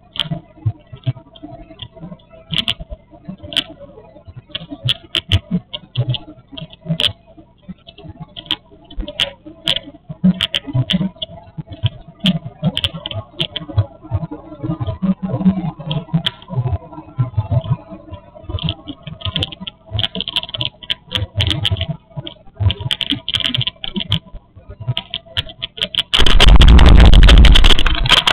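Boeing 747 cabin noise on final approach: a faint steady whine under many small clicks and crackles. About two seconds before the end a loud roar with a deep rumble sets in suddenly as the jet reaches the runway.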